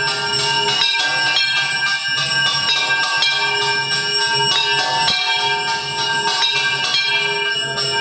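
Temple bells of the evening aarti ringing continuously, many overlapping ringing tones with repeated metallic strikes about every half second to second.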